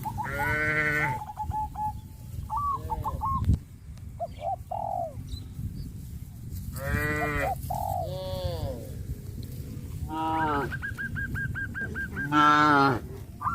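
Farm animals calling: four drawn-out, pitched calls, with short repeated bird chirps between them.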